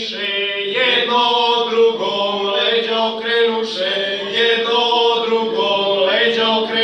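A traditional Serbian men's folk singing group singing together in long held notes, with a lower voice holding one steady note underneath.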